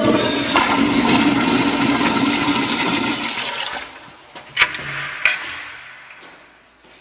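Kohler toilet flushing: a sudden loud rush of water that holds for about four seconds, then dies away. Two sharp clicks come a little after four and a half and five seconds in.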